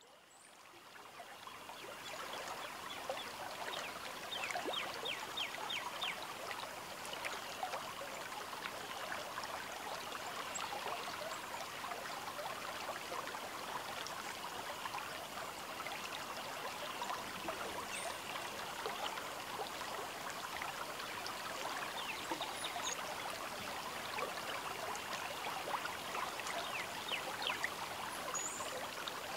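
River water trickling and babbling steadily along the bank, fading in over the first couple of seconds, with a few short high chirps now and then.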